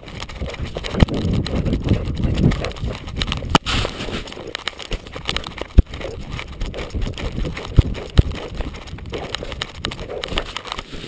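A Labrador retriever running through snow, heard through a camera on its collar: a steady thudding of footfalls and jostling, broken by a few sharp knocks of the camera housing.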